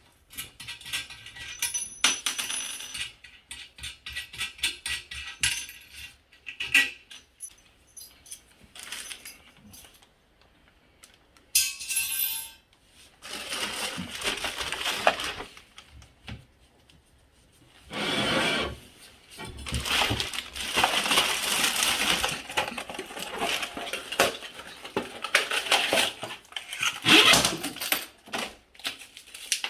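Scattered clinks and rattles of small metal hardware, with handling knocks, as a new toilet's parts are put together.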